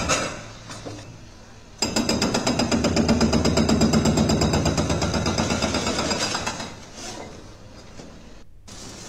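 An excavator-mounted hydraulic breaker hammering a reinforced concrete building, a rapid, evenly paced run of blows that starts about two seconds in and stops after about four and a half seconds. A short swoosh of noise comes at the very start.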